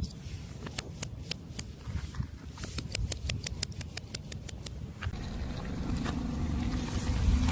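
Crunchy objects cracking and snapping under a car tyre: a run of sharp crackles over about four seconds. Then a car engine comes in, running and growing louder.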